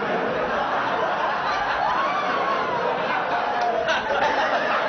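Audience laughing: a steady wash of crowd laughter.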